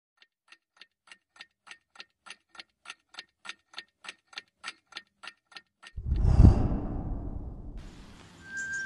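Clock ticking, about three ticks a second, growing steadily louder; about six seconds in the ticking stops and a loud, deep whoosh swells and fades away. Bird chirps start just before the end.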